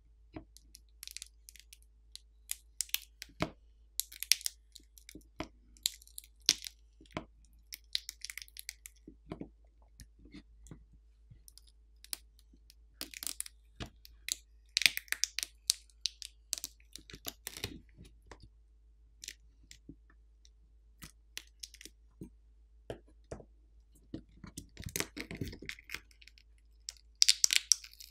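Small metal hand tools clicking and scraping on a smartphone's internals as a battery screw is removed and the battery is pried loose, in scattered sharp ticks. Near the end a denser crackling as the battery comes up off its adhesive.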